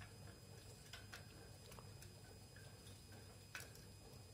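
Near silence: faint room tone with a few soft clicks, the clearest about three and a half seconds in.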